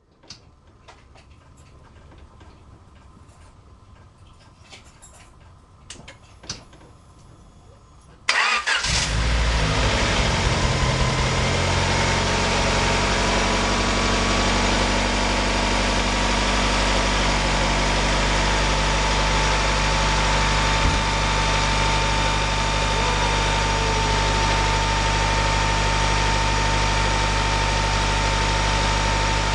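Freshly installed replacement Honda H23A 2.3-litre inline-four comes in suddenly about eight seconds in and then runs steadily at idle, with a thin steady whine over it. Before that there are only a few faint clicks of handling.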